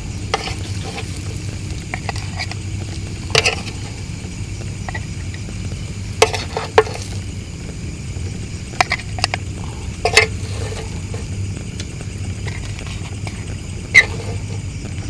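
A metal spoon scraping and clinking against a ridged grill pan and a plate as banana slices sizzle on a portable stove. There are several sharp clinks, the loudest near the end, over a steady low rumble.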